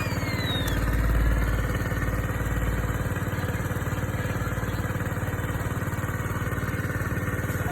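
A small engine running steadily at an even, unchanging speed, with a brief high falling chirp at the very start.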